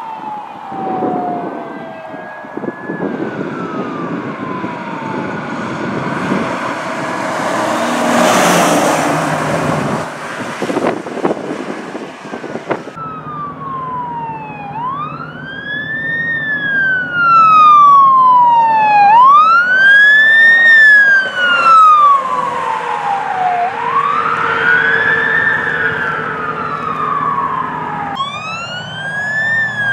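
Emergency vehicle sirens, heard in turn: a siren winding down, then a loud rush of engine and road noise about eight seconds in as a vehicle passes. From about halfway, a wail siren rises quickly and falls slowly, roughly every four seconds, and a second siren starts near the end.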